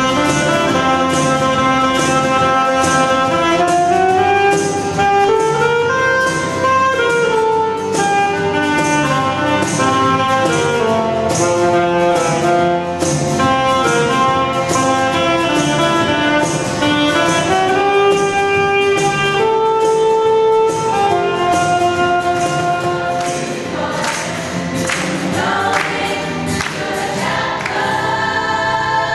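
Choir singing a song with instrumental accompaniment and a steady beat.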